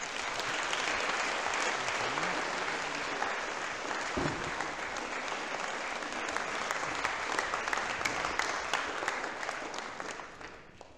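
Audience applauding, steady clapping that dies away near the end.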